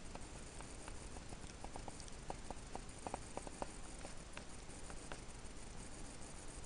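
Faint, irregular light tapping, a few ticks a second and thickest in the middle, over a steady low hiss.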